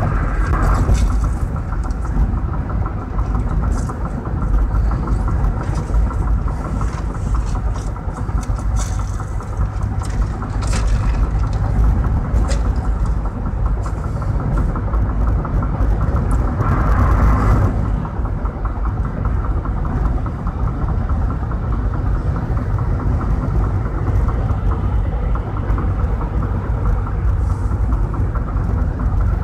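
Steady road and engine noise of a car cruising at highway speed, heard from inside the cabin as a continuous low rumble. A brief brighter swell comes a little past halfway through.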